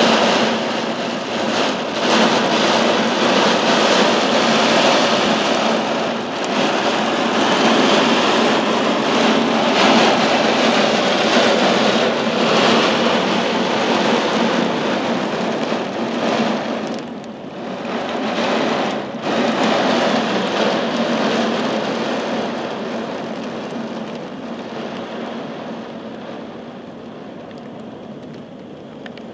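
Torrential rain pouring down in a violent thunderstorm: a loud, dense, steady wash of rain. It dips briefly twice a little past halfway, then fades gradually toward the end.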